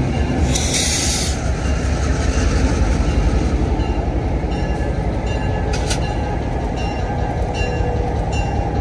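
Diesel locomotive of the Naugatuck Railroad moving slowly past at close range, its engine running with a steady low rumble and the wheels rolling on the rails. A short burst of hiss comes about half a second in and lasts about a second.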